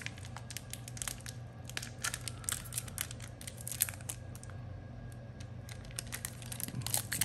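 Foil trading-card booster pack wrapper being crinkled and worked at by hand, with scattered sharp crackles and tearing as the stubborn pack resists being opened.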